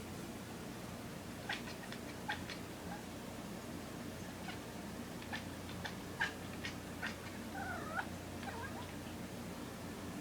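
A kitten making a string of short, clipped calls at a moth, most of them quick chirps bunched together a little past halfway, then a brief call that bends in pitch near the end.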